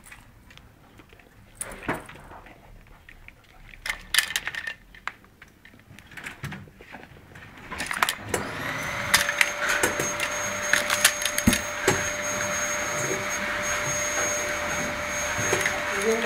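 A vacuum cleaner is switched on about halfway through, its motor spinning up and then running with a steady whine. Before that, only scattered light clicks and knocks.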